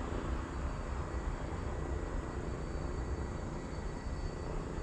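Electric motor and propeller of a ParkZone T-28 radio-controlled model plane running steadily in flight as it comes around for a landing, with a faint steady whine over a low, uneven rumble.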